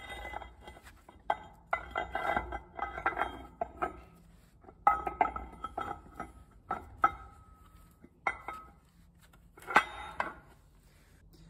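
Large steel spur gear being worked into a Bobcat 743 chaincase gearbox housing, clinking and clanking against the housing and the meshing gear teeth. The sound comes as repeated short metallic rattles and knocks, some with a brief ring.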